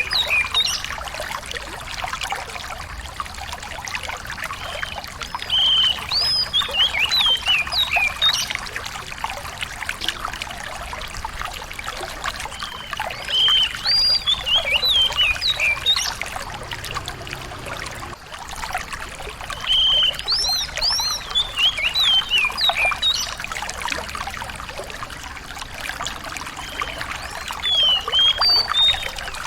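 Small songbird singing short bouts of quick, sharp whistled notes that rise and fall, a new bout about every seven seconds, over a steady trickle of running water.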